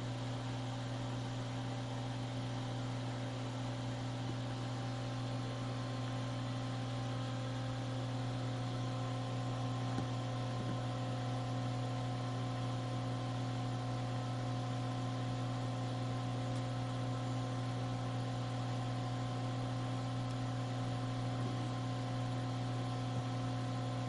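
Steady electrical mains hum with a few fainter steady higher tones over it, and one small tick about ten seconds in.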